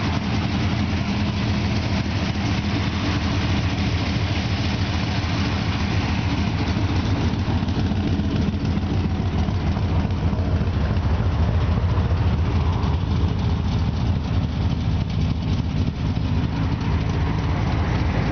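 600-cubic-inch big-block V8 with dual 660 carburetors in a 1965 Ford Mustang, idling steadily.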